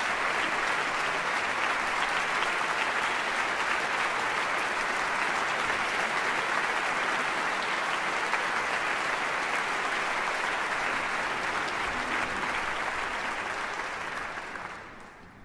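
Concert hall audience applauding steadily, the clapping dying away in the last second or so.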